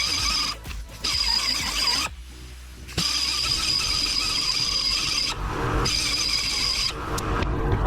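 Angle grinder grinding on the steel hub of a go-kart wheel, a steady high whine over rough grinding noise, stopping briefly twice and changing pitch toward the end; the hub is being ground down so that it will seat in the rim.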